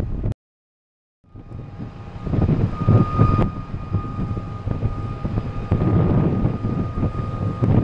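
Wind buffeting the microphone as a loud, uneven low rumble, over a faint steady whine of distant ship or pier machinery. The sound cuts out completely for about a second just after the start, then returns.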